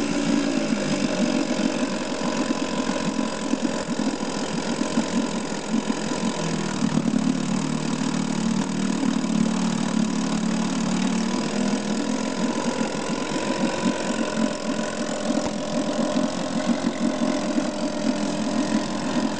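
Evinrude 4 hp two-stroke outboard motor running steadily with its leg in a tub of water, the propeller churning the water. The engine note dips slightly for a few seconds midway, then steadies again.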